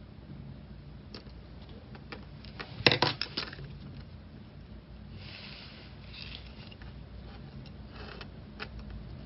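Handling sounds of tatting: small clicks and rustles of fingers working thread and a fine metal hook, with a short cluster of louder clicks about three seconds in and a soft scrape around five to six seconds in.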